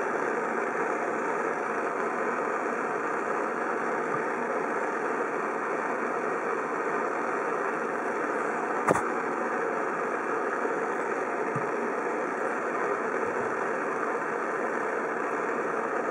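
Steady machine noise, a constant even hum and rush, with a single sharp click about nine seconds in.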